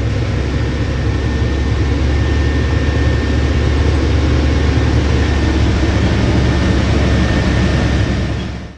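Farm truck's engine and road noise heard inside the cab while driving slowly: a steady low rumble with a faint steady whine above it.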